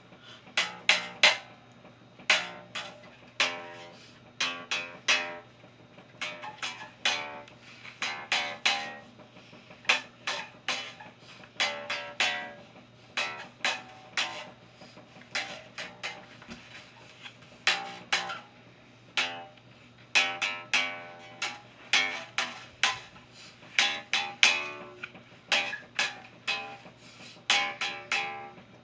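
Electric guitar strummed and plucked unevenly, in short groups of chords that ring briefly and die away, with small pauses between.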